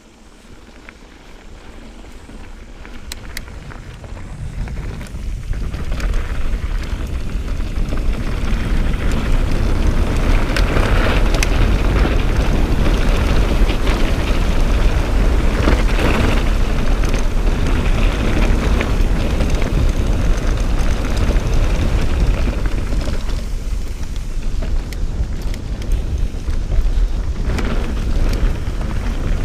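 Wind buffeting the camera microphone, with mountain-bike tyres rolling over a dry dirt track. The noise builds over the first five or six seconds as the bike picks up speed downhill, then holds, with scattered clicks and rattles.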